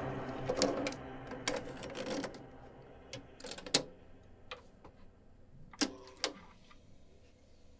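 A cassette deck being loaded by hand: a string of sharp plastic clicks and clacks as the cassette goes into the holder and the door is pushed shut, then two firm clicks near the end as a piano-key transport button is pressed.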